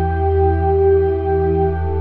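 Background music: slow ambient music of long, held notes.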